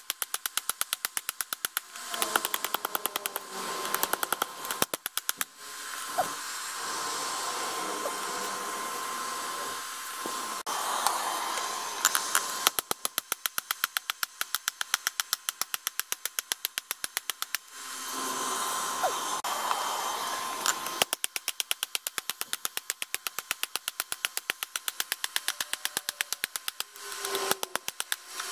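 Hand hammer beating a hot 5160 high-carbon steel knife blade on a steel-block anvil, in fast, even runs of several blows a second, forging the edge bevels. Between the runs there is a steady rushing noise.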